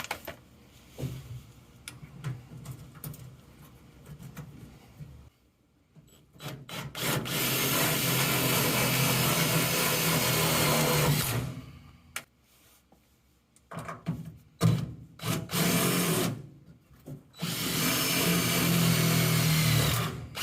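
Power drill running in two long steady runs with a few short pulls of the trigger between them.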